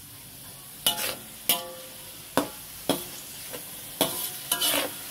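A metal slotted spatula knocking and scraping against a steel wok while stirring rendang spice paste frying in oil. About half a dozen sharp knocks start about a second in, each leaving a brief metallic ring, over a steady sizzle.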